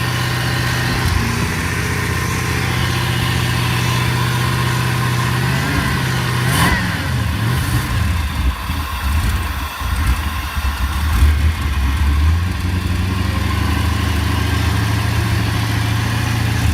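Twin-turbo 6-litre LQ4 V8 running just after its first start, idling steadily at first. About six seconds in it goes uneven, its speed wavering for several seconds, before it settles into a steadier idle near the end.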